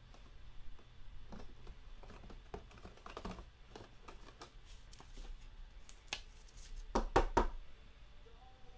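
Light clicks and taps of hands handling a trading card and a hard plastic card holder, with a cluster of sharper clicks in the last third.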